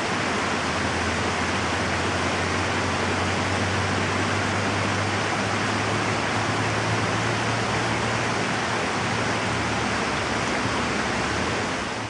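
Water rushing steadily over a spillway, an even roar of flowing water with a low rumble underneath.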